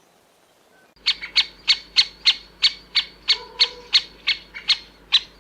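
Yellow-bellied sapsucker: a series of sharp, evenly spaced notes, about three a second, beginning about a second in.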